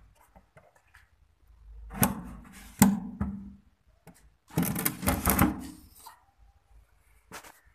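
Knocks and rubbing of a screwdriver and hand working at the terminal screws of a row of miniature circuit breakers in a stabilizer panel. The sound comes in two bursts, the first about two seconds in with one sharp knock, the second about four and a half seconds in, and there is a single click near the end.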